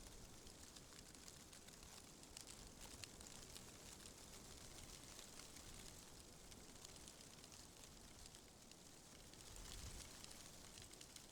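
Faint rustling of tree leaves stirred by wind, a soft hiss full of tiny crackling ticks, with a low wind rumble that swells briefly near the end.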